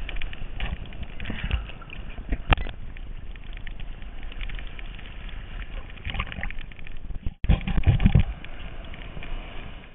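Small surf and choppy water sloshing and splashing against a waterproof camera housing at the water's surface, with sharp knocks of water hitting the case. The sound cuts out for an instant about three quarters of the way through, then the loudest splashing follows.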